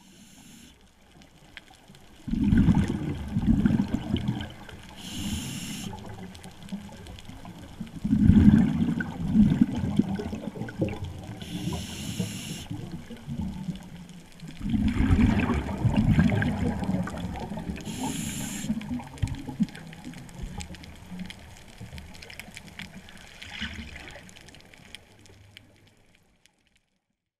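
Underwater water sound: bubbles rushing and gurgling in three loud surges about six to seven seconds apart, each followed by a brief hiss, with a weaker surge near the end before it fades out.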